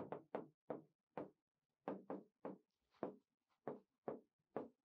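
Light writing taps: about a dozen short, irregular knocks, the kind made by chalk or a pen striking a writing surface.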